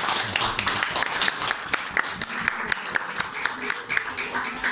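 Audience clapping, many hands at once, with dense, quick claps.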